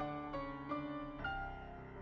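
Gentle background piano music: single notes struck and left to ring, a new note every half second or so.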